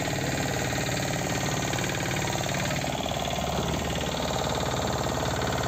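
A fishing boat's engine running steadily at idle, with a fast, even beat.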